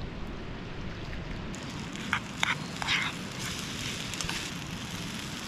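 Wood campfire burning with a steady low rush, with a few sharp crackles about two to three seconds in.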